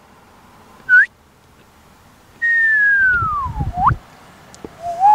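A person whistling in sliding pitches: a short upward whistle about a second in, then a long falling whistle that swoops back up, then another rising whistle near the end. A low rumble sits under the long falling note.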